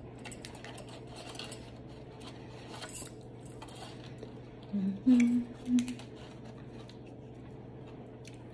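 Gloved fingers cracking and picking at crab leg shells, with faint clicks and crackles. About five seconds in, a person hums three short notes.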